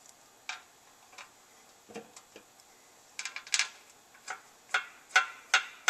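Small sharp metallic clicks and taps from hand tools and bolts as the oil pan is being screwed onto the engine block: a few scattered at first, then a run of about two or three a second in the second half.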